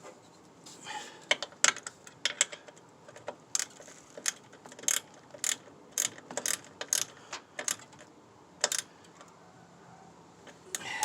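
Sharp metallic clicks and clinks of a hand tool, irregular at about one or two a second, as a nut is tightened on a truck's brake master cylinder.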